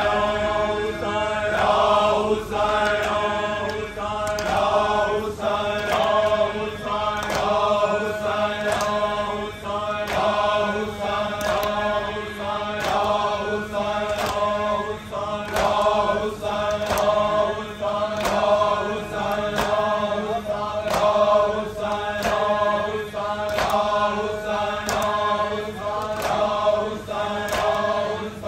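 Men's voices chanting a noha, a Shia lament for Imam Hussain, in steady held phrases. Sharp slaps of matam (chest-beating) keep time about once a second.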